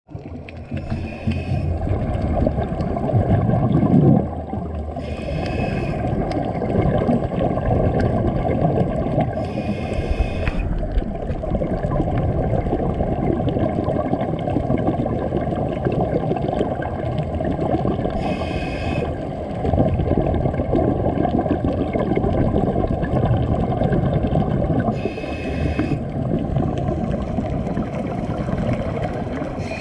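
Underwater ambience heard through a diver's camera: a dense, steady low rush of water, broken every few seconds by a scuba regulator breath with its hiss and rush of exhaled bubbles.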